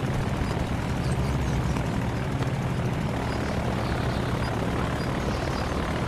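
Potez 25 biplane's piston engine and propeller droning steadily in flight, a deep, even hum with a noisy rush over it.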